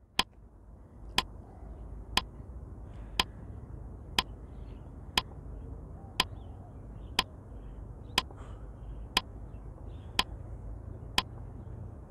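Countdown timer ticking once a second, twelve sharp clock-like ticks, over a faint low rumble that comes in about a second in.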